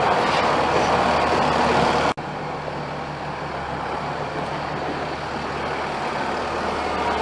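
Heavy farm machinery engine running steadily. A momentary dropout about two seconds in, after which it runs on slightly quieter.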